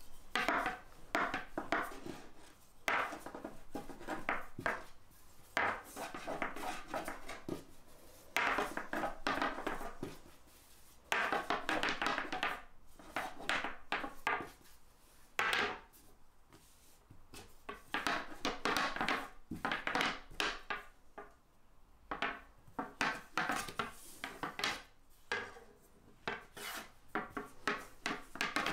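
Long thin wooden rolling pin (oklava) rolled back and forth over phyllo dough on a starch-dusted table: repeated rolling strokes, each a short run of knocks and rubbing, with brief pauses between.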